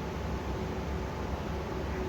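Steady background hiss with a low hum and no distinct events.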